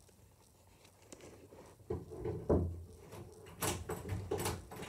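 Irregular soft knocks and rustling scrapes starting about two seconds in, with a few sharp clicks near the end.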